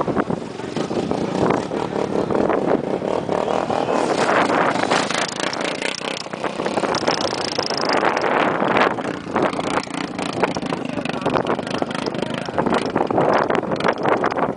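Quad bike engine running as it rides across sand dunes.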